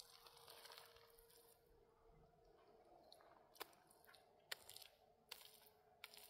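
Faint gritty scraping and squishing of wet mud plaster being smeared by hand onto a cinder-block wall, with a few sharp clicks about once a second in the second half.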